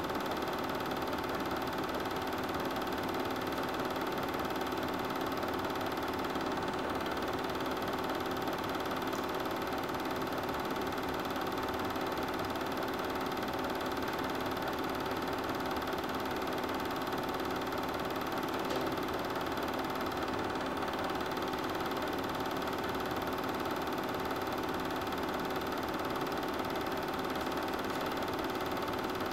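Super 8 film projector running steadily, a mechanical whir with several steady tones in it and no change throughout.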